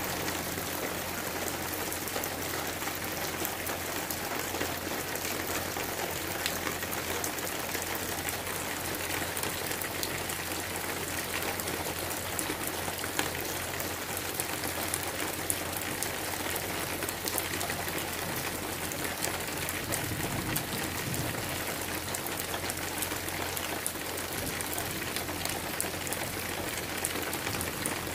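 Steady rain falling: an even hiss dotted with the fine ticks of drops.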